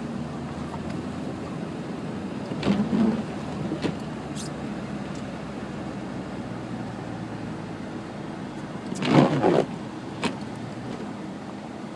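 Inside the cabin of a 1998 Subaru Legacy Outback driving through snow: steady engine hum and road noise, with two louder knocks about three and nine seconds in, the second the loudest, and a short click about ten seconds in.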